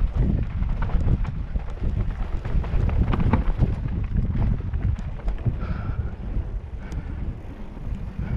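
Wind buffeting a helmet-mounted camera's microphone while a mountain bike descends a dry dirt trail, with tyres crunching over the ground and the bike rattling and clicking over rough spots. Two brief high squeals come in the second half.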